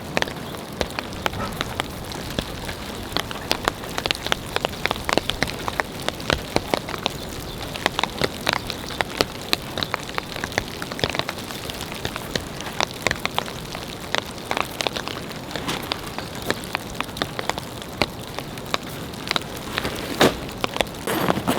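Steady winter rain falling, with many heavy drops striking sharply and irregularly over a constant patter.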